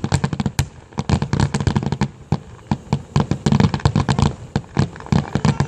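Fireworks going off in a rapid, irregular string of sharp cracks and pops, several a second, with deeper booms mixed in.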